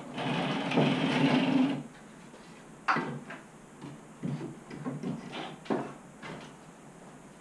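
Plywood-and-MDF CNC table on casters rolling briefly across a concrete floor for about two seconds, with a steady low hum under it. It is followed by a scatter of clicks and knocks at one leg as the on/off casters are set so the table stands on its feet.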